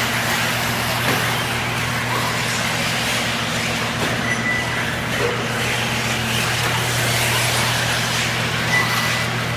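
1/8-scale electric off-road RC buggies running on a dirt track: brief high motor whines over a broad hiss, with a steady low hum underneath.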